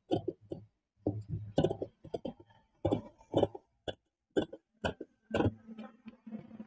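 Large tailor's shears cutting through blouse fabric on a table: a quick, irregular run of sharp snips and blade clicks, about two or three a second.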